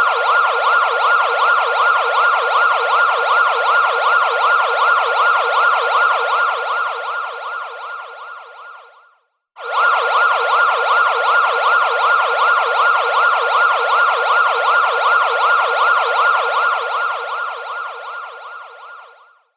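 Police siren sounding in a fast yelp, its pitch sweeping up and down several times a second. It fades out, stops briefly about nine seconds in, then starts again and fades out once more near the end.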